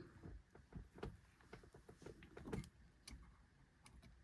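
Faint scattered clicks and light taps of small metal parts and a hand tool being handled at an ignition lock, with a slightly louder knock about two and a half seconds in.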